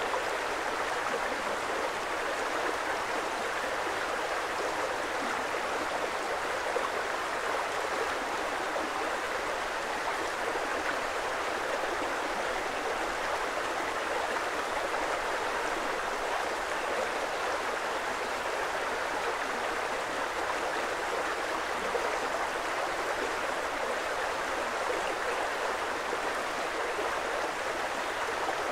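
Creek water flowing, a steady, even rush without breaks.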